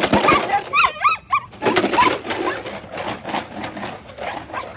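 Belgian Malinois puppies yelping and whining, several short high-pitched cries in the first second or so and fainter yips after, over rustling and clattering.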